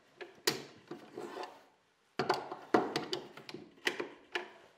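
Small plastic bar clamps handled in a plywood rack, clacking and rattling against the wooden holders and each other. The knocks come in two spells, a short one early and a longer, busier one from about two seconds in.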